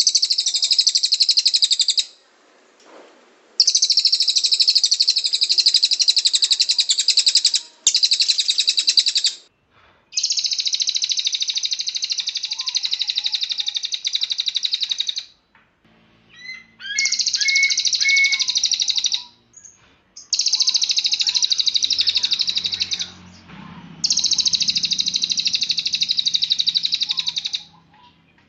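Cililin bird singing its rapid 'tembakan' song: long, very high-pitched, fast trills lasting several seconds each, repeated with short pauses between them.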